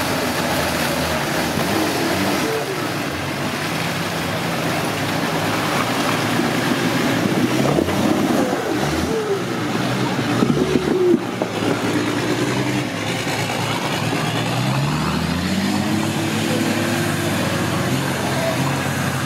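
Nissan Patrol Y60 4x4 engine revving under load as it climbs a muddy, rutted track, its pitch rising and falling with the throttle and climbing steadily near the end.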